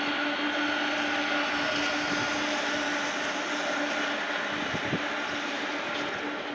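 Pratt & Whitney PW4000-series turbofans of a Boeing 747 freighter running as it taxis: a steady, growling midrange "vooon" with several steady whining tones over the roar.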